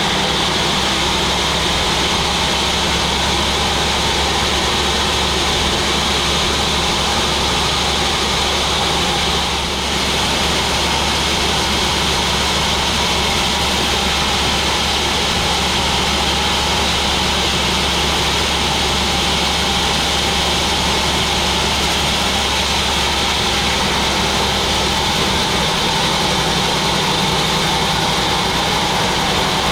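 Large sawmill machine running, a loud steady mechanical drone with a constant low hum and a high-pitched band of noise.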